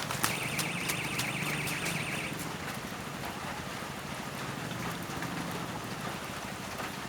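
An electronic fishing bite alarm sounds a warbling, wavering tone for about two seconds, just after a sharp knock at the start. A steady hiss and scattered clicks run underneath.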